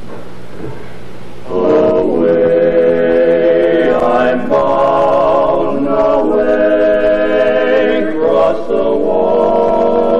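Male barbershop quartet singing a cappella in close four-part harmony. After a short pause the voices come in about a second and a half in and hold long chords, moving to a new chord a few times.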